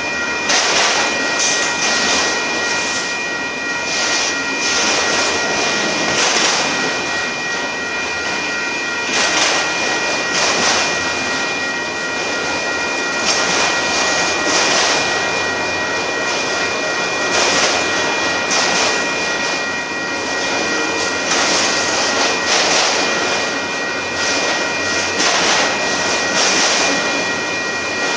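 Freight train of autorack and hopper cars rolling past: a continuous rumble and rattle of steel wheels on rail, swelling every second or two as car trucks pass. A grade-crossing bell rings steadily over it.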